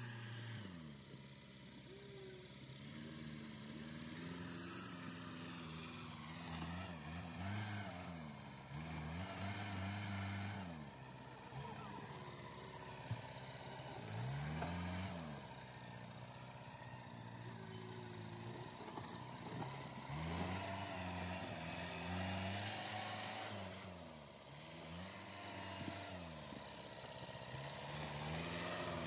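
LKT Turbo forestry skidder's turbocharged diesel engine working its front blade through earth, the revs rising and falling again and again every couple of seconds. There is one sharp click about halfway through.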